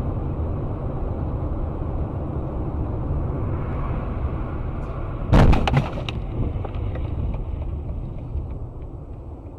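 Steady road and engine rumble of a moving car, broken about five and a half seconds in by the loud crash of a collision: a cluster of sharp impacts lasting about half a second, after which the rumble goes on.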